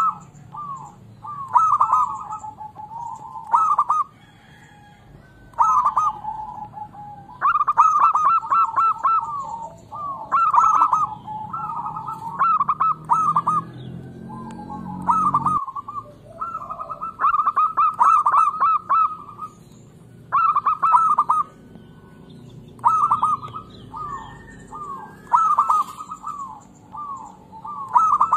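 Local-type zebra dove (perkutut) singing its cooing song: short phrases of rapid staccato notes, one every second or two, with a brief pause a few seconds in.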